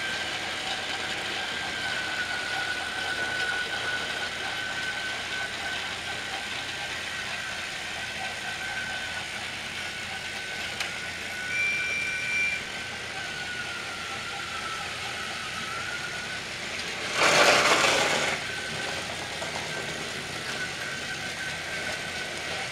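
Battery-powered Trackmaster toy train motors whirring steadily, with a thin high whine that wavers in pitch as the engines run around the track. A short high beep sounds partway through. About seventeen seconds in comes a loud burst of noise about a second long, the loudest sound.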